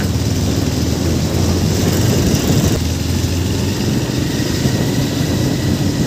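Motorcycle engine running steadily while riding, heard from the saddle, with wind and road noise rushing over the microphone.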